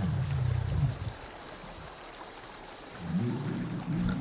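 Lion giving two low growling calls, one at the start lasting about a second and another beginning about three seconds in. Insects chirp in an even, pulsed rhythm behind them.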